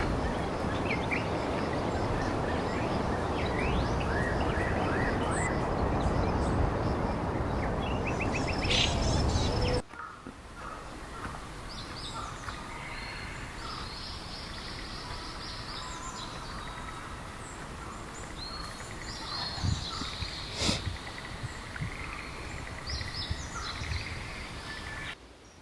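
Wild birds chirping and singing in a forest. For about the first ten seconds the calls sit over a loud steady rushing noise; then the noise drops away suddenly and the calls stand out clearly, with a sharp click about twenty seconds in.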